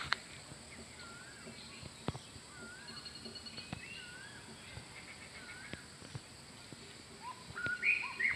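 Several wild birds calling: a short rising-and-falling whistle repeated about once a second, thin rapid trills higher up, and a louder burst of calls near the end, over a steady high-pitched hum.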